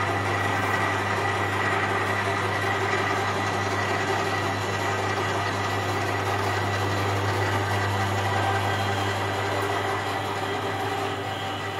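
Electric motor and chain drive of a profile pipe bender running steadily with a hum while its rollers bend a steel strip into an arc.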